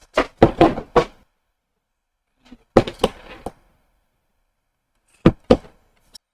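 Short knocks and thuds in separate clusters, with two sharp knocks close together near the end.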